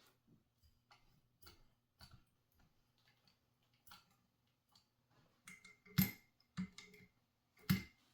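Light clicks and knocks of hands working the metal controls and parts of a Singer 1200 sewing machine, with a few louder clacks in the last few seconds, the loudest about six seconds in.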